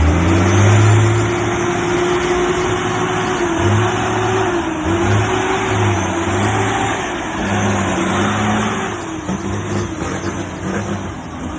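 Heavy truck's diesel engine running under load as it pulls a bulldozer on a trailer. Its steady note wavers slightly in pitch.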